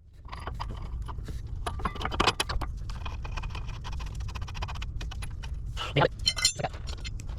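Wrenches clinking and knocking against the shock absorber's mounting bolts and hardware, metal on metal, in scattered clicks with louder clinks about two seconds in and a quick run of clinks about six seconds in.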